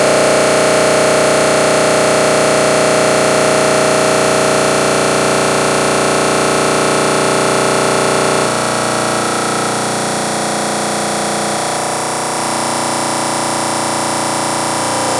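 Dense, distorted electronic drone of many steady tones over a wash of noise. It shifts abruptly to a slightly quieter, different texture about eight and a half seconds in, and changes again around twelve seconds.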